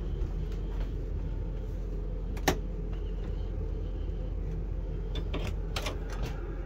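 An RV interior door being handled: a sharp click about two and a half seconds in, then a cluster of latch clicks and knocks near the end, over a steady low hum.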